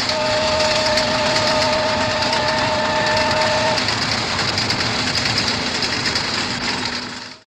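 Passenger train hauled by an electric locomotive running past, a steady rumble and rattle of wheels with a two-note horn sounding for about four seconds at the start. The sound cuts off abruptly near the end.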